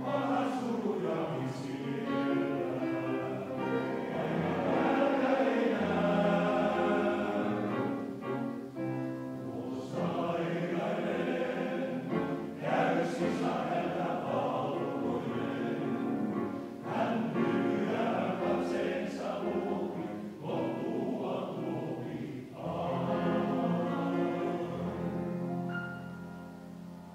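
Male choir singing in parts, with the sound dying away near the end as the phrase closes.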